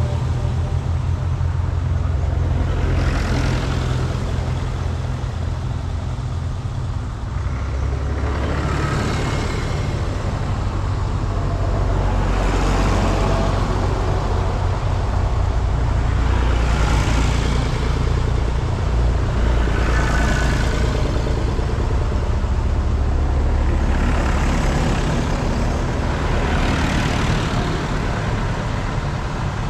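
Vintage tractors driving past one after another, the low engine chug steady throughout and swelling each time a tractor passes close, several pass-bys in all.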